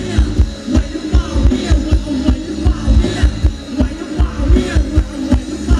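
Live band playing Thai ramwong dance music, loud, with a steady, heavy kick-drum beat.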